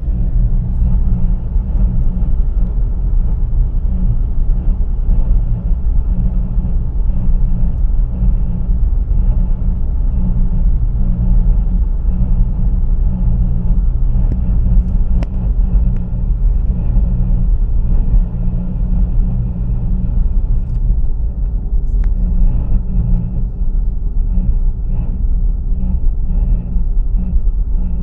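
2004 Acura MDX driving slowly up a gentle incline in D5 at about 1,200 RPM, heard from inside the cabin: a steady low rumble with a grinding noise that the owner thinks comes from the transmission.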